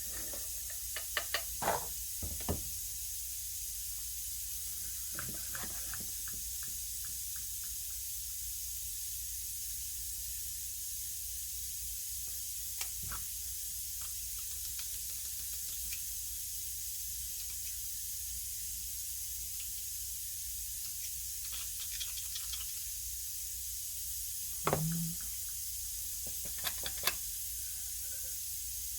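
Light scattered clicks and knocks from a pneumatic joggler flange tool being handled while its oil is topped up, over a steady hiss. The knocks are a few separate clusters, the loudest about 25 and 27 seconds in.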